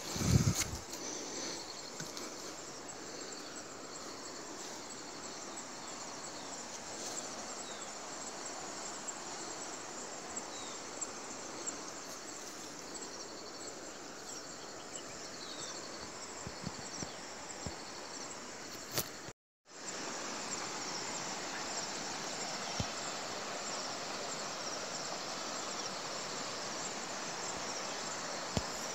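Steady insect chorus, a high continuous buzzing over a soft forest hiss. A loud low thump right at the start, and the sound cuts out for a moment about two-thirds of the way through.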